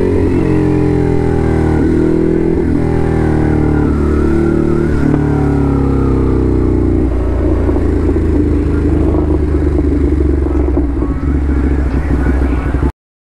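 Ducati Hypermotard SP's L-twin engine running under way at speed, its pitch shifting up and down over the first several seconds, then holding steadier. The sound cuts off abruptly near the end.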